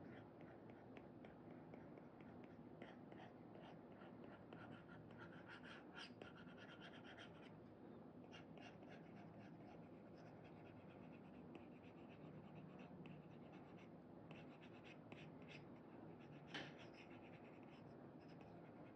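Faint scratching and tapping of an Apple Pencil 2 nib on an iPad screen with a paper-like screen protector, in quick clusters of short strokes, with one sharper tap near the end.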